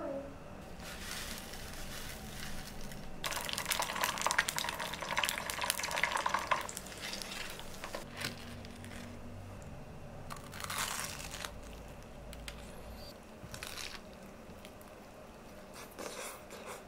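Close-up food-prep sounds of a breaded cutlet being deep-fried: a few seconds of hot oil sizzling and crackling, the loudest stretch, a few seconds in, with shorter rustles later. Near the end comes a crunchy bite into the fried crust.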